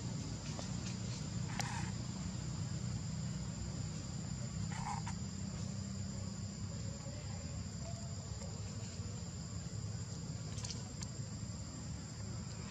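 Steady high-pitched insect drone, with two short chirps about two and five seconds in.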